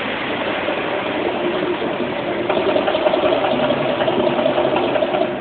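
Las Vegas volcano show erupting: a loud, continuous rumbling roar, with a steady droning tone joining in about halfway through and the level falling away near the end.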